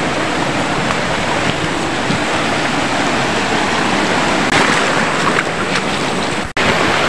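Steady rush of a shallow forest river flowing over rocks, with a few small knocks about two-thirds of the way through. The sound drops out for an instant near the end.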